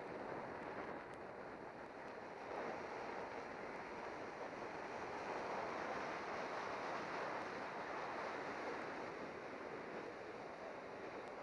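Wind rushing over a camera microphone as a road bicycle descends at speed, a steady roar that swells a few seconds in and eases off near the end.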